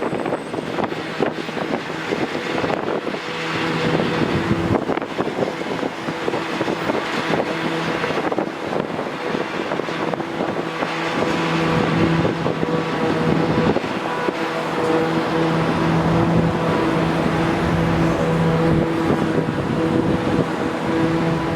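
A steady engine drone over a wash of noise, the drone dropping out briefly now and then.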